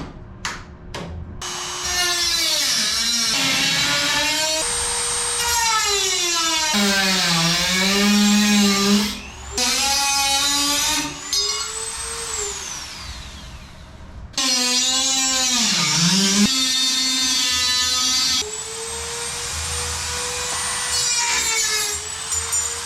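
Dremel rotary tool with a cutting wheel cutting aluminium sheet. Its high whine sags in pitch again and again as it bogs under load, then recovers, in several passes with short pauses between them.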